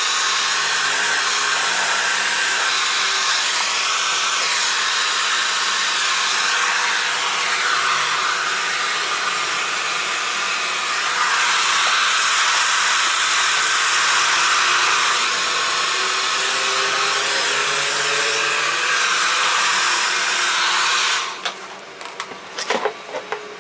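Handheld hair dryer running, a steady rushing blow of hot air that gets louder about halfway through. It cuts off a couple of seconds before the end, followed by a few light knocks.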